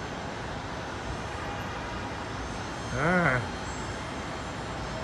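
Steady, even background noise of an airport, with no distinct aircraft event standing out; a man says "yeah" once about three seconds in.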